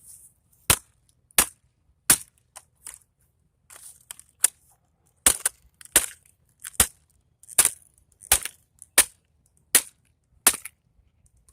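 A vacuum cleaner's motor housing being banged hard, again and again, to break a stubborn piece off it: about a dozen sharp knocks, most about three-quarters of a second apart, with a short pause partway through.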